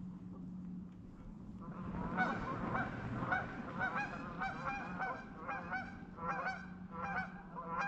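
A flock of geese honking as they fly in, many overlapping calls several times a second, starting about two seconds in, over a low steady hum.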